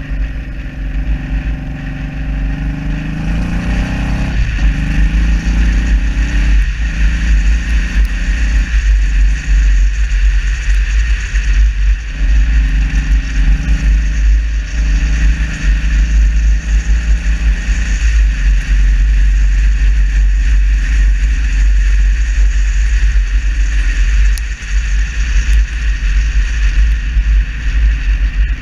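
Cruiser motorcycle engine running under way, its pitch climbing and dropping several times as the rider works the throttle and gears, with heavy wind buffeting on the bike-mounted microphone.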